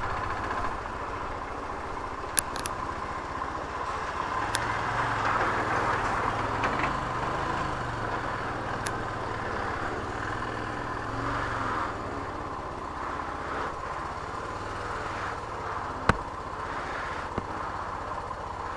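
Royal Enfield Himalayan's single-cylinder engine running steadily on the move, a little louder in the middle. Two sharp clicks, one early and one near the end.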